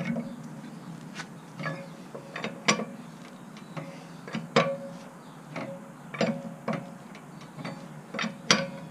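Wheel lug nuts being tightened with a wrench after the car is lowered: sharp metallic clicks and clanks, single or in small clusters, about every half second to a second.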